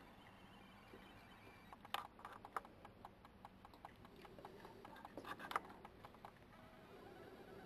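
Faint, irregular clicks and crunches of badgers and foxes eating food scattered on the ground, with a louder cluster about two seconds in and another around five seconds in.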